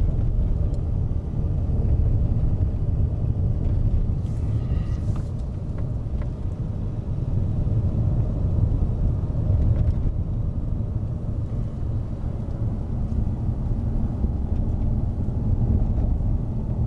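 A car driving along a winding road, heard from inside the cabin: a steady low rumble of engine and tyre noise.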